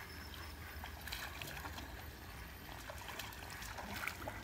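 Water lapping and trickling, over a steady low wind rumble, with a few faint scattered ticks.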